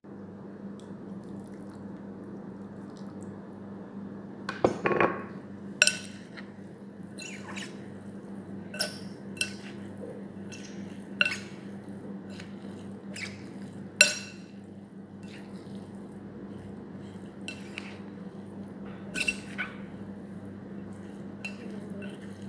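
A spoon tossing tabbouleh salad in a bowl, with irregular clinks and taps of the spoon against the bowl and a soft stir of wet leaves; the loudest knock comes about fourteen seconds in. A steady low hum runs underneath.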